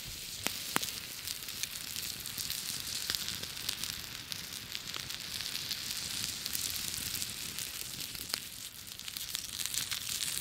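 Thick prime rib steak sizzling steadily on a flat rock heated red-hot in a wood fire, with the fire crackling and giving a few sharp pops.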